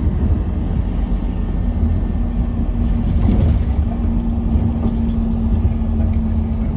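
Low, steady engine rumble of a vehicle, with a steady hum joining in about two seconds in.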